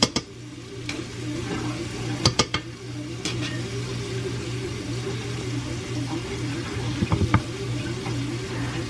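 Bread machine motor running on the dough cycle, kneading the dough: a steady hum with a whine that wavers up and down over and over. A few light clicks and knocks of utensils against bowls come about two seconds in and again near the seven-second mark.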